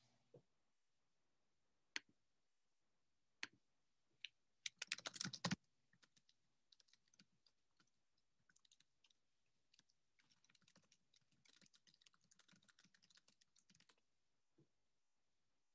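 Faint computer keyboard typing: a few single key clicks, a quick run of keystrokes about five seconds in, then softer, rapid typing near the end.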